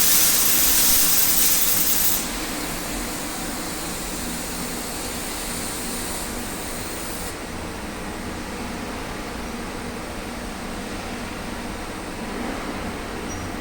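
A loud, steady hiss that cuts off suddenly about two seconds in. A steady, lower machine hum continues underneath.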